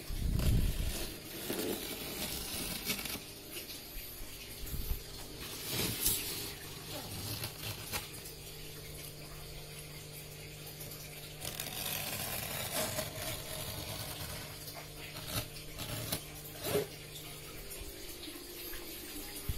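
Water running and splashing over a steady low hum, with scattered short knocks and rustles of handling throughout.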